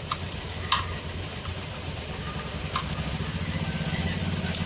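A steady low hum runs throughout, under a handful of short, sharp clicks and ticks, several in the first second and a couple more later.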